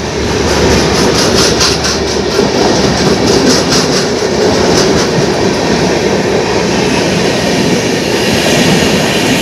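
New Delhi–Amritsar Shatabdi Express coaches going past close by at speed on the adjacent track: a loud, continuous rush of wheels and air with a clatter of wheels over rail joints.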